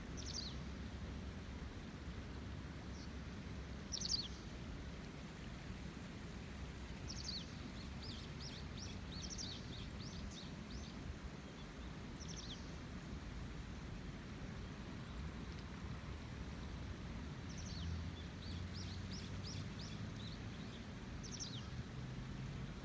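River in rainy-season flow: a steady rush of water. A bird calls over it with short chirps that fall sharply in pitch, singly at first, then in quick runs of several chirps.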